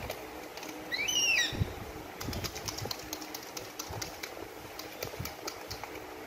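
A baby monkey gives one short, high squeak that rises and falls, about a second in. Light clicking and tapping follows from a small plastic baby bottle being handled.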